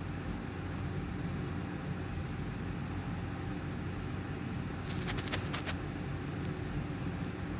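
Room air conditioner running with a steady hum and hiss. A brief burst of crackling clicks comes about five seconds in, with a couple of faint ticks after it.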